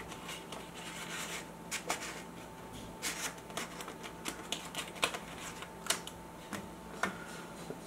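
Sheets of vellum paper being handled and slid into place behind a receiver's dial glass: irregular light crinkles and clicks, over a faint steady hum.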